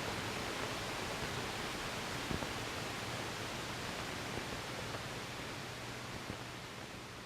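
Steady hiss of an old film soundtrack between lines, with a low hum beneath and a few faint clicks, slowly fading away toward the end.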